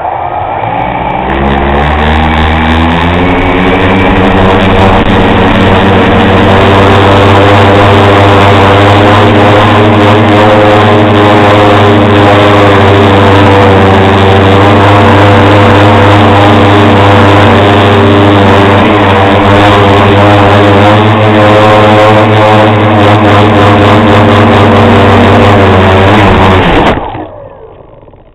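A tricopter's three motors and propellers, heard from the camera mounted on the craft: they spin up with a rising whine at the start, run steadily and very loudly through the flight, and stop abruptly about 27 seconds in.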